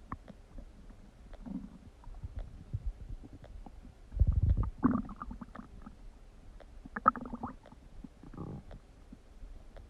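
Human stomach gurgling and rumbling in several separate gurgles. The loudest is a deep rumble about four seconds in, followed at once by a higher, bubbling gurgle, with shorter gurgles a few seconds later.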